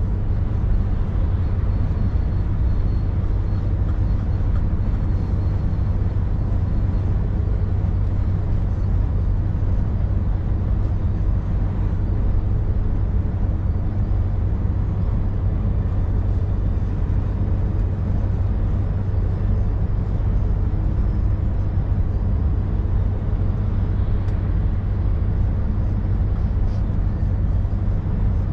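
Scania 530S truck's V8 diesel engine running steadily under way, a constant low drone.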